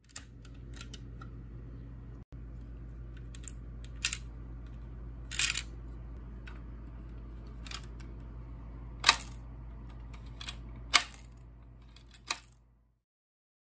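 Sharp plastic clicks and taps of LEGO pieces as a hand lifts and lowers the hinged hood of a LEGO Pizza Planet truck, over a steady low electrical hum. The clicks come irregularly, with the two loudest near the end, and the hum cuts off suddenly just before the end.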